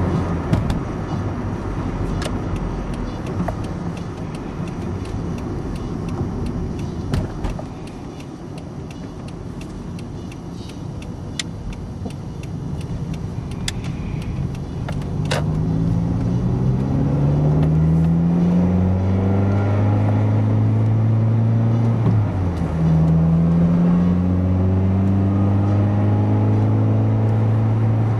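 Toyota Corolla running. Sharp clicks are scattered through the first half. In the second half a pitched tone rises steadily, drops about two-thirds of the way through, and rises again over a steady low hum, growing louder.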